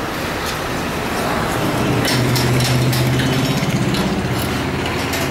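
Steady motor vehicle engine hum in the background, swelling louder about two seconds in and easing off near the end, with a few sharp clicks in the middle.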